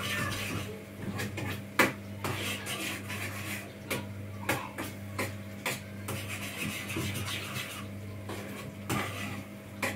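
A utensil stirring and scraping food in a frying pan on a gas stove, with irregular taps and clacks against the pan, one louder clack about two seconds in. A steady low hum runs underneath.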